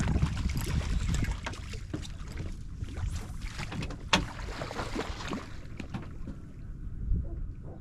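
Wind buffeting the microphone with a steady low rumble, over irregular knocks, rustles and splashes of handling in a small fishing boat; one sharp knock about four seconds in.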